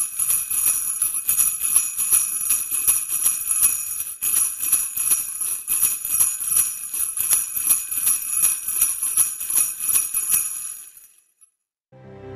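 Sleigh bells shaken in a steady rhythm, a bright jingling that fades out near the end.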